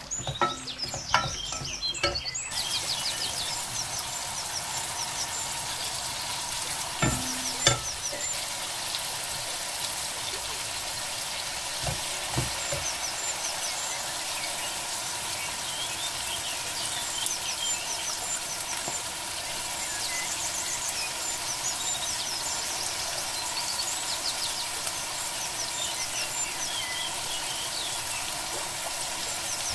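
Sliced onions frying in hot oil in an aluminium pot, a steady sizzle. There are a few sharp knocks in the first eight seconds.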